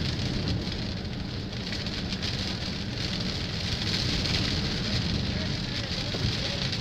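Hurricane wind and driving rain, with waves splashing over the shore bank: a steady rushing noise without a break.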